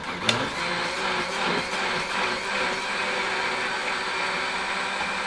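Countertop blender motor running steadily, blending avocado and milk into a thick drink.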